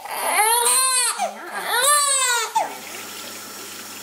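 Newborn baby crying during her first bath: two long cries, each rising and then falling in pitch, with a short one between them. The crying stops a little over halfway through, leaving only a faint steady hiss.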